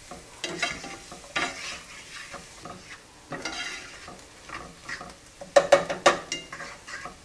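Wooden spoon stirring and scraping diced onions sautéing in butter in a nonstick skillet, in repeated strokes over a low sizzle. A few sharp clicks of the spoon against the pan come about five and a half seconds in, the loudest sounds.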